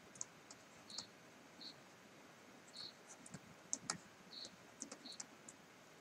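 Faint, irregular clicks and light taps of a stylus writing on a tablet screen.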